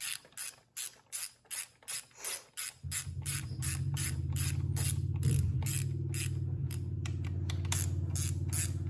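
Ratchet wrench clicking in quick, evenly spaced strokes, about two to three a second, as a cover screw on a dirt bike engine is tightened. About three seconds in, a steady low hum starts underneath and stays.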